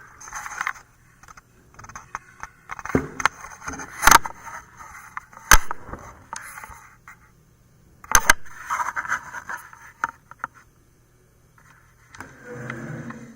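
Handling noise of objects being shifted and slid about on a hard surface: irregular scrapes and rustles with sharp knocks about four, five and a half and eight seconds in. A faint steady low hum runs underneath.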